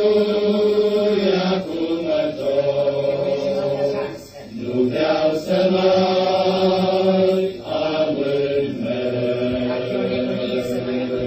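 Men's choir singing a slow hymn in long held chords, in phrases that break off every few seconds.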